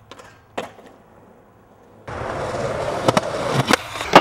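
Skateboard: a single sharp clack about half a second in, then from about two seconds in the wheels rolling on rough pavement, with several sharp clacks of the board on the ground and the metal handrail, the loudest right at the end.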